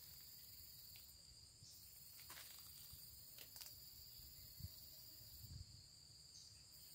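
Near silence with a faint, steady high-pitched insect trill, crickets, and a few faint soft knocks.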